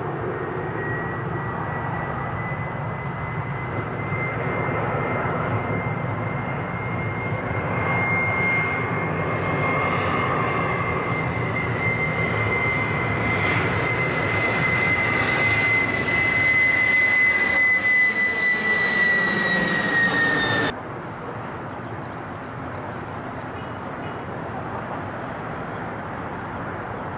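Boeing 767 twin jet engines on landing approach passing low overhead: a broad rushing noise with a steady high fan whine that grows louder and dips slightly in pitch as the plane passes. About two-thirds of the way in the sound cuts off abruptly to a quieter, even noise.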